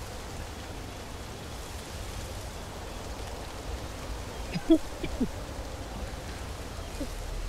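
Outdoor ambience: a steady low rumble and hiss like wind, with a few short chirps a little past halfway.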